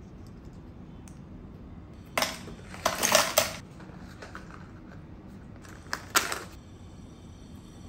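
Aluminium Nespresso coffee capsules and their cardboard sleeve being handled over a clear acrylic storage box: short bursts of light metallic clinks and cardboard rattle, about two to three seconds in and again around six seconds in.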